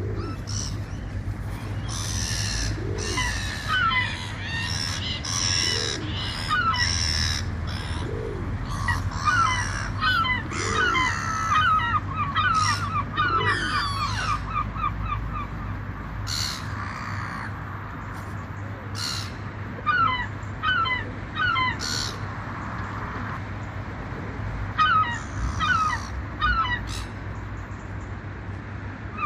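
A flock of gulls calling: many short, harsh calls repeated in quick runs and overlapping, busiest in the first half and again near the end. A steady low rumble runs underneath.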